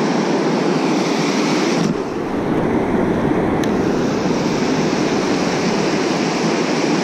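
Fast-running river rapids, a loud, steady rush of white water.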